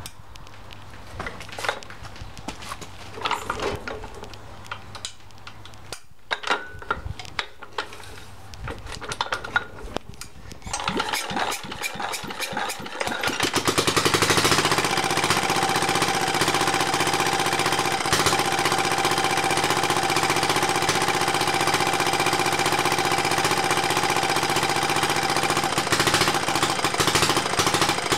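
Lister Petter AB1 single-cylinder air-cooled diesel hand-cranked for a cold start. First come a few scattered clicks and knocks, then several seconds of cranking that speeds up. About halfway through, the engine fires and runs on steadily with an even, rapid beat, much louder than the cranking.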